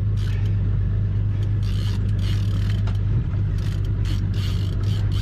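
Boat's outboard motor running steadily at low speed with a constant low hum, and scattered short clicks over it.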